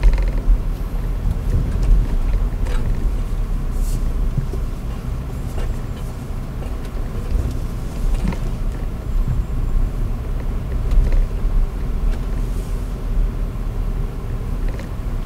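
Cabin noise inside an Audi Q5 driving slowly over a rough dirt track: a steady low rumble of engine and tyres, with a few scattered knocks from the body and suspension over the bumps.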